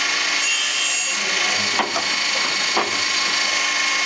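Loroch band saw sharpening machine running, its grinding wheel grinding the saw teeth in a steady harsh hiss, with a sharp tick roughly once a second.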